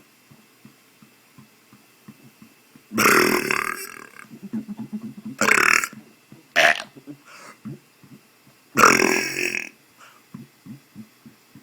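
A man's deliberate burps, forced up by swallowing air: four loud burps, the longest about three seconds in and another long one near nine seconds, with a short one between. Faint clicks come between the burps.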